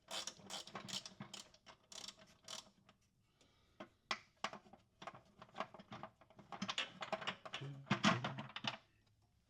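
Ratcheting wrench clicking in quick runs, about four or five clicks a second, as a bolt is worked out. It pauses about three seconds in, then goes on more unevenly, with a few louder knocks near the end.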